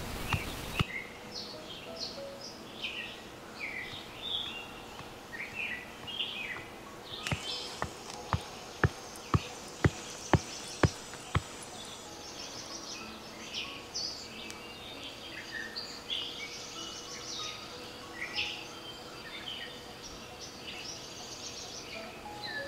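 Wooden pestle pounding jackfruit seeds in a mortar: about nine sharp knocks, roughly two a second, in the middle stretch. Birds chirp throughout.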